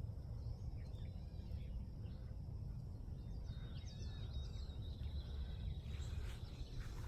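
Outdoor field-edge ambience: a steady low rumble, with a few short bird chirps about halfway through and a thin, high, steady buzz or trill that carries on to the end.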